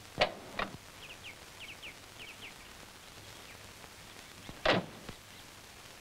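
A car door shutting with a loud clunk about three-quarters of the way through. Before it come two sharp clicks near the start and a few short, quick, falling bird chirps.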